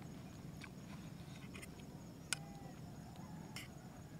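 A metal eating utensil clicking against a small metal camping pot while noodles are scooped from it, a few light clicks with one sharp clink about two seconds in that rings briefly.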